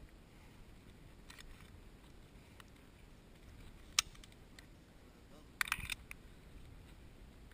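A quiet stretch with a few faint clicks, one sharp click about four seconds in, and a short rattle of clicks near the end.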